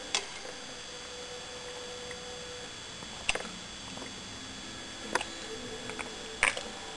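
Metal fork knocking against a stainless steel pot: four sharp clicks spread over a few seconds, the first leaving a tone ringing for about two and a half seconds, over a faint steady hum.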